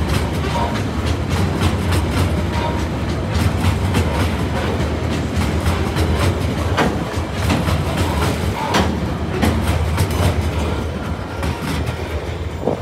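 Coal hopper wagons of a freight train rolling past over a level crossing: a steady rumble with wheels clattering and clicking over the rail joints. The sound eases near the end as the last wagon goes by.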